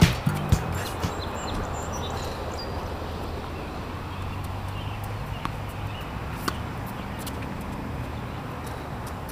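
Steady outdoor background noise with a low hum, broken by a few faint sharp knocks, the clearest about six and a half seconds in. Funk music with guitar cuts off in the first half-second.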